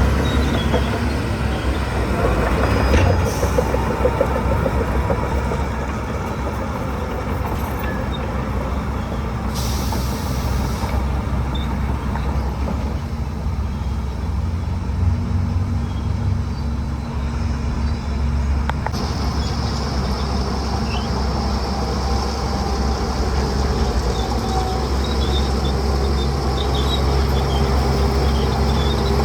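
Heavy diesel earthmoving machinery running steadily and working, with a short hiss about ten seconds in.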